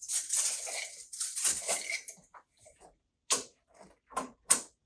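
Steel tape measure being pulled out along the freezer, a scraping rattle for about two seconds, then three sharp clicks as the tape is handled and locked.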